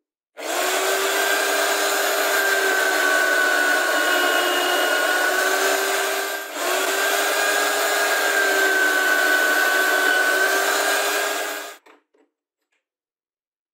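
Drill press running, its bit boring holes into an MDF disc: a steady motor sound with a whine that wavers slightly in pitch. It breaks off briefly about six and a half seconds in, then stops abruptly near the end.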